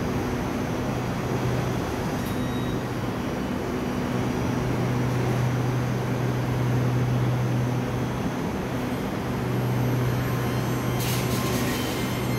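Electric commuter train standing at a platform, its onboard equipment giving a steady low hum, with a brief hiss near the end.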